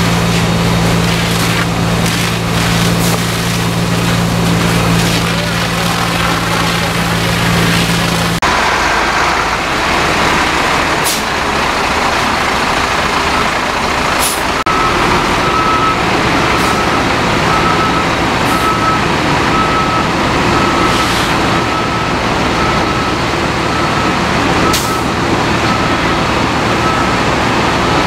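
Fire trucks' diesel engines running with a steady low drone. After an abrupt cut about eight seconds in, truck engine noise continues in the open, and from about halfway a truck's reversing alarm beeps steadily, a little over once a second.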